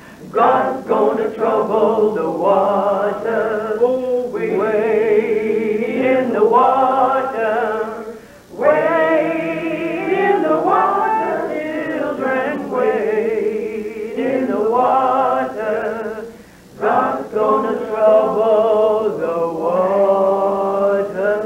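Unaccompanied singing in three long phrases, the voices held with vibrato and a short break between phrases about eight and sixteen seconds in.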